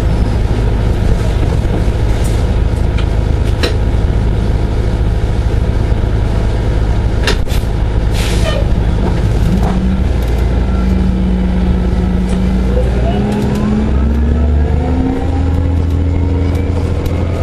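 Orion 07.501 low-floor hybrid bus running with a steady low hum and scattered clicks and rattles. There is a short air hiss about eight seconds in. From about thirteen seconds its hybrid drive gives a whine that rises in pitch as the bus picks up speed.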